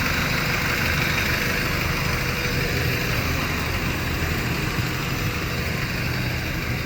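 Honda D16Y1 1.6-litre four-cylinder engine in a 1993 Civic running steadily with no rod knock: its spun number-two connecting rod bearing has been replaced.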